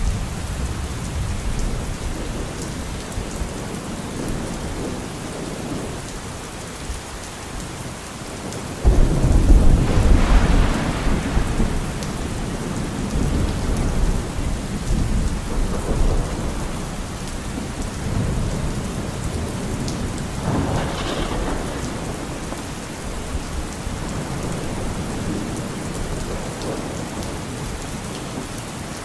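Steady rainfall with thunder: a sudden loud clap of thunder about a third of the way in rolls on for a few seconds, followed by weaker rumbles later.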